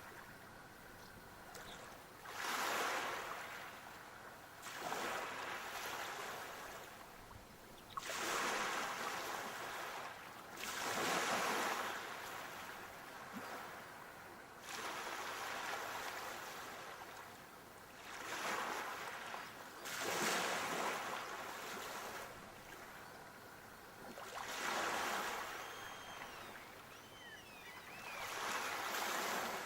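Sea waves breaking and washing onto the shore, surging in again every two to three seconds.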